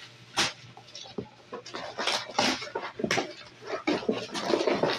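A husky vocalizing in short, irregular bursts, mixed with the rustling of bags and packaging being unpacked from a suitcase.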